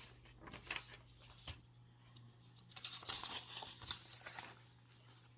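Irregular rustling and crinkling with scattered small clicks, busiest just past the middle, over a steady low electrical hum.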